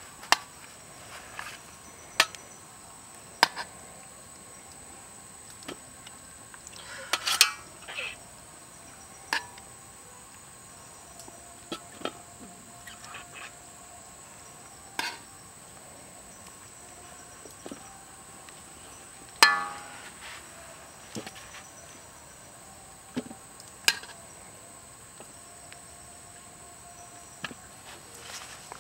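Metal tongs clacking and pieces of boiled cow feet being set down on a metal tray: scattered sharp clicks and knocks, one every second or few, the loudest about two-thirds of the way through with a short ring. Under them runs a steady high insect drone.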